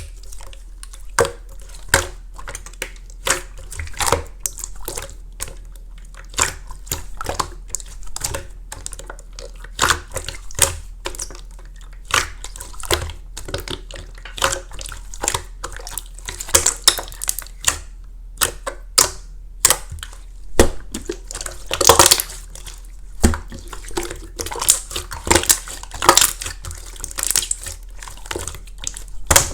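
Clear slime with flakes mixed in being squeezed and pressed by hand, giving irregular sharp pops and sticky clicks, about one or two a second, with wet crackling between them.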